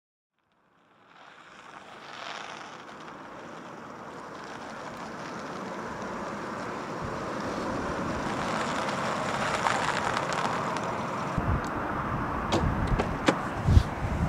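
A car approaching on a wet road, its engine and tyre noise growing steadily louder, followed by a few sharp knocks and clicks near the end.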